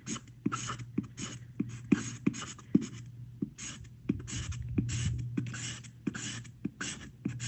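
Pencil scratching on paper in quick back-and-forth strokes, about three a second, as a dark area is shaded in.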